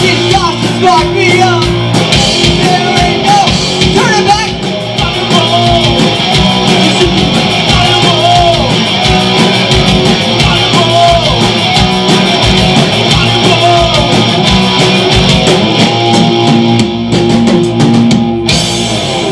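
Live rock band playing loud, with distorted electric guitar, bass, drums and a singer; the song comes to a stop at the very end.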